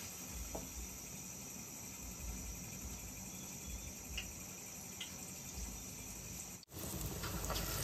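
Crickets chirring steadily in a high, even trill, cutting out briefly near the end.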